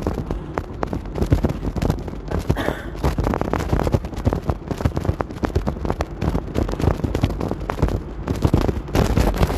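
Rain pattering close to the microphone: a dense crackle of drops over a steady low rumble.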